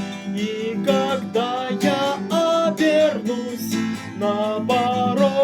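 Acoustic guitar strummed under a sung melody, the voice holding long notes with vibrato.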